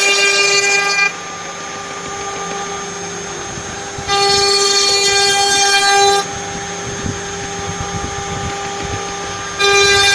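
CNC router spindle whining at a steady high speed while the cutter skims the spoilboard flat. The sound switches abruptly between loud and fuller and quieter, about every two to three seconds, as the cut changes along the passes.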